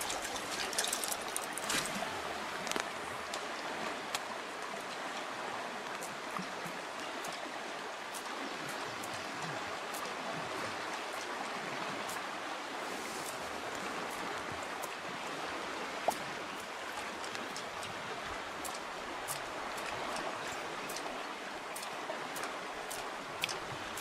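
River current running steadily, with scattered faint ticks and one sharper click about two-thirds of the way through.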